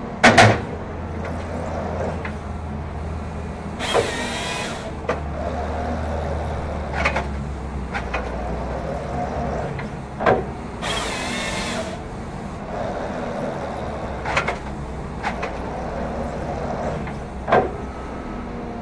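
Cat 538 forestry machine running steadily under a steady low engine hum while its TreeKing processor head strokes back and forth, with metal clunks every few seconds and a loud knock just after the start. Two sharp hisses, each about a second long, come about four seconds in and again about eleven seconds in.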